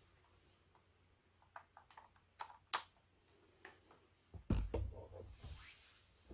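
Scattered light clicks and taps, with one sharp click near the middle, then a louder low bump and rustle about four and a half seconds in.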